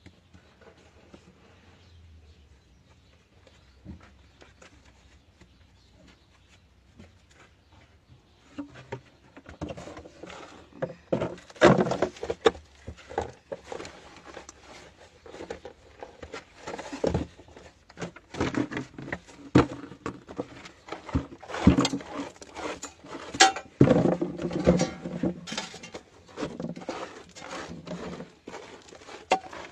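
Hand digging in rock and soil: stones and earth scraped and knocked about, faint at first, then irregular clattering knocks and scrapes from about nine seconds in.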